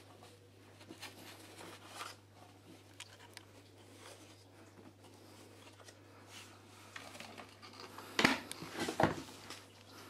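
Socks being pulled by hand out of a vacuum cleaner's opening: soft cloth rustling and scattered light clicks of handling, with two louder knocks about eight and nine seconds in.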